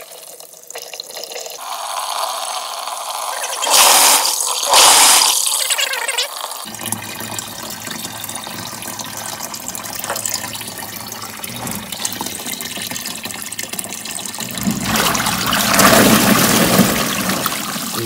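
Water streaming from a faucet hose into the tub of a portable washing machine as it fills, with two brief louder surges about four seconds in. A low hum joins about seven seconds in, and near the end the water churns louder as the washer agitates the fill.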